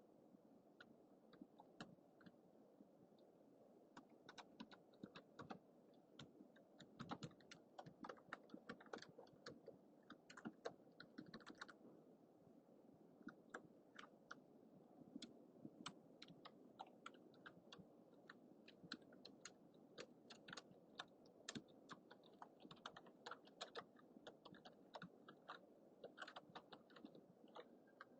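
Typing on a computer keyboard: quick irregular key clicks in bursts, with a short pause about twelve seconds in, over a steady low hiss from a cheap microphone.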